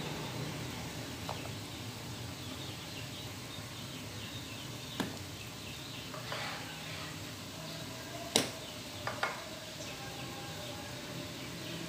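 Aluminium pot of water boiling on a gas stove with pempek dough pieces cooking in it, a steady bubbling hiss. A few sharp clicks and knocks break through it, the loudest about eight seconds in, with two more just after.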